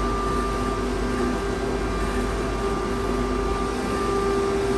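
EJCA dust extractor running steadily just after start-up: its motor and fan give a steady whine over an even rush of air.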